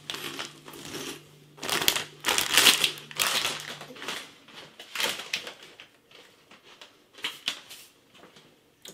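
Chewing light, airy pork rind crisps (chicharon), with irregular crunches. The crunching is loudest and densest for a couple of seconds about two seconds in, then thins to a few scattered, quieter crunches.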